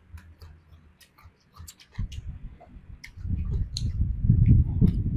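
Close-miked chewing of a mustard-green roll filled with pork and cucumber: crisp, wet clicking mouth sounds throughout, then a low rumbling from about two seconds in, loudest near the end.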